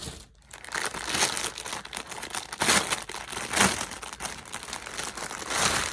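Packaging and clothing being handled and unpacked, crinkling and rustling throughout, with several louder crinkles.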